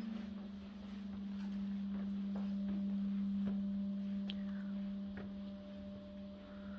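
A steady low humming drone, one held tone with a fainter higher tone above it, under a few faint footsteps on stone.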